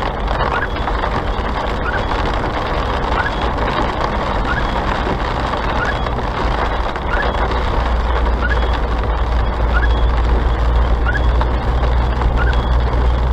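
Car interior noise while driving at about 40 km/h on a wet road: a steady hiss of tyres and rain with an engine and road hum, the low rumble growing louder about halfway through. A short rising squeak repeats about every three-quarters of a second.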